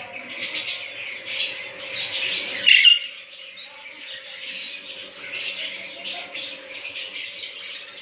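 Lovebirds in an aviary chirping and chattering continuously, with one loud squawk about two and a half seconds in. A faint steady hum runs underneath.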